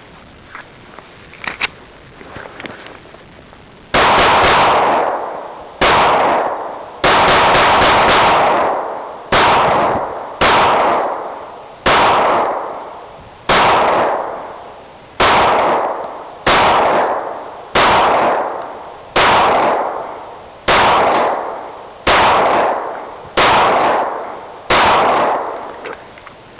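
Semi-automatic firearm shooting at a steady, aimed pace: about sixteen single shots, roughly one every second or so, each with a long echoing tail. The first four seconds hold only faint clicks and handling sounds before the shooting starts.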